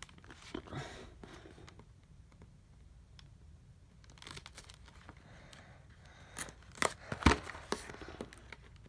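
A blade scratching and cutting at the seal of a cardboard SSD retail box, with faint scattered scrapes and crinkles. In the last few seconds the handling grows louder, with a cluster of scrapes and clicks, the loudest a sharp click about seven seconds in.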